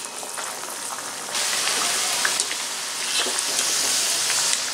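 Masala vada (ground split-gram fritters) deep-frying in hot oil in a kadai: a steady sizzling, bubbling hiss that gets louder about a second in as more of the fritters are in the oil.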